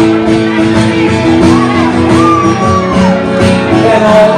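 Live amplified music in a large hall: acoustic guitar and a male singer, with a long high vocal line or shout that rises, holds and falls through the middle.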